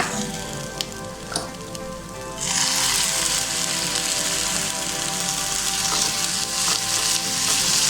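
Chopped tomato hitting hot oil in a frying pan: a couple of light knocks, then about two and a half seconds in a sudden loud sizzle that carries on steadily as the tomato fries.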